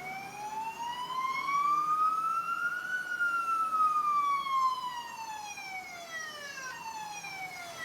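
A voice imitating a fire-engine siren: one long wail that rises in pitch for about three seconds, then falls slowly and ends near the end.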